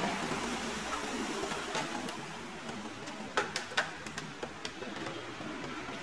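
A few light clicks and taps of hands handling the metal and plastic case of an all-in-one desktop computer, several close together past the middle, over a steady background hiss.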